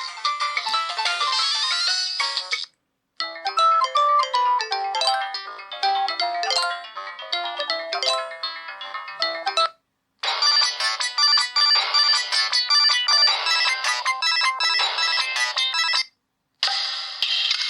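Samsung E720 mobile phone playing its polyphonic ringtones one after another. A tune ends near the start, two more play for about six seconds each with brief silences between them, and a fourth begins near the end.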